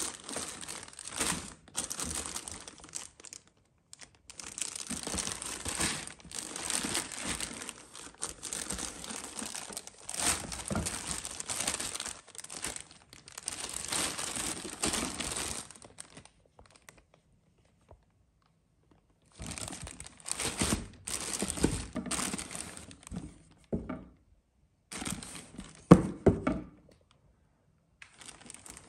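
Clear plastic polybag crinkling and rustling as a garment in it is handled and lifted, in long stretches with a pause of a few seconds in the middle. A sharp knock about three seconds before the end is the loudest sound.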